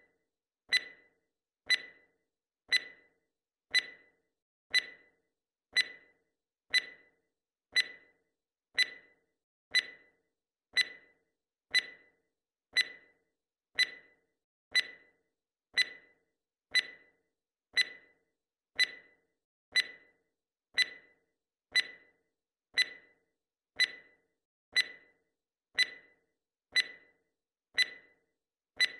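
Timer tick sound effect: one short, sharp tick every second, steady and even, in time with the seconds of a digital countdown timer.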